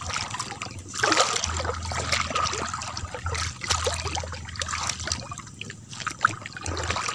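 Shallow seawater splashing and trickling in irregular sloshes, as someone wades through it hunting crabs.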